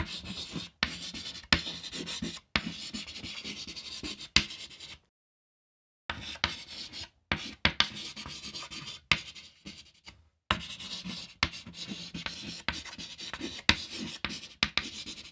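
Chalk writing fast on a chalkboard: quick scratchy strokes punctuated by sharp taps of the chalk, with a short silent break about five seconds in and another brief pause about ten seconds in.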